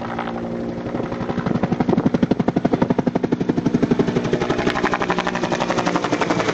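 Bell UH-1 'Huey' helicopter passing close, its two-bladed main rotor beating out a fast, even blade slap of about ten beats a second over the turbine. The beating swells about a second in and is loudest around two to four seconds in.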